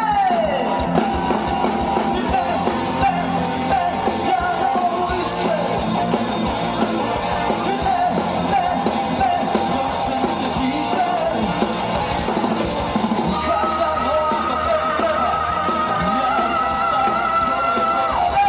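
Rock band playing with a singer, a long held note coming in about two thirds of the way through.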